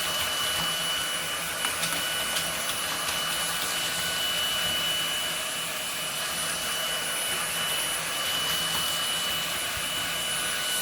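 Dreame V11 cordless stick vacuum running steadily: a high, even motor whine over the rush of suction airflow. A few light clicks come about two seconds in.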